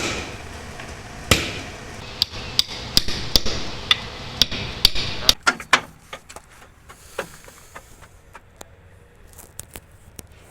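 Hammer striking metal in a run of sharp, ringing blows, about three a second at their busiest, then giving way to lighter, scattered taps and clicks.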